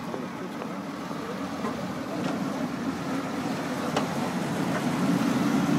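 Yellow Duckmarine amphibious DUKW tour vehicle driving past, its engine a steady low drone that grows louder as it comes alongside.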